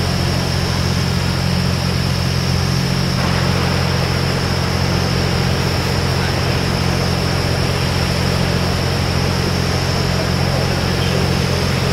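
An engine idling steadily, a low even hum with a constant hiss over it.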